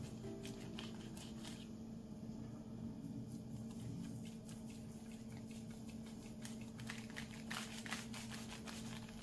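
Knife cutting through a soft, moist carrot-pineapple cake, with light scrapes and scattered short taps, most of them near the start and in the last few seconds, over a steady low hum.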